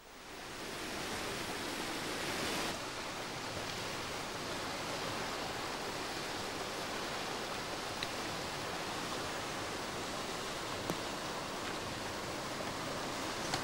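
Steady rushing hiss of outdoor background noise, with a few faint ticks.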